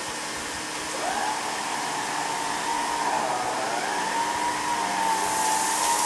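Vintage Electrolux SuperJ canister vacuum with its power nozzle running on carpet: a steady rush of air with a motor whine that wavers in pitch as the nozzle is pushed back and forth.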